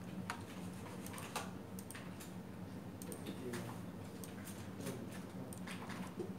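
Irregular clicks and taps of a computer keyboard and mouse being used, over a steady low hum.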